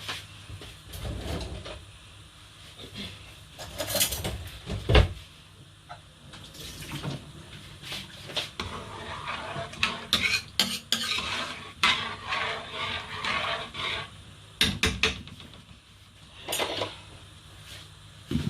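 Pots, lids and cutlery clattering: a string of separate sharp knocks and clinks, with a busier stretch of clinking and scraping in the middle.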